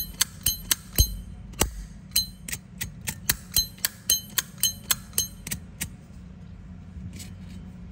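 Brass Zippo lighter's lid flicked open and snapped shut again and again: a quick run of sharp metallic clicks, each with a bright ringing ping, about three a second, stopping about six seconds in.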